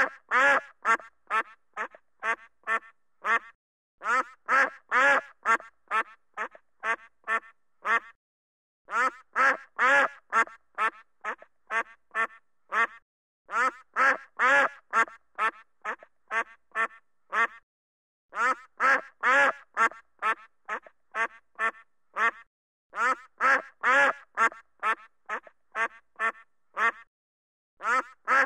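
Duck quacking in runs of about ten quick quacks, loudest in the middle of each run, with a new run every four to five seconds in much the same pattern each time.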